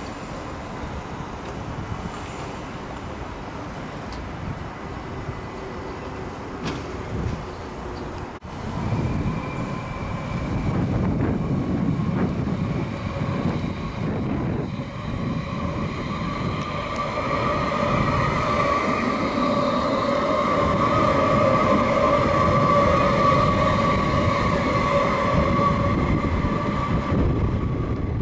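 CAF Urbos 100 tram running past on its rails. The rumble of wheels and running gear grows louder after about eight seconds, and a steady high whine joins it through the second half.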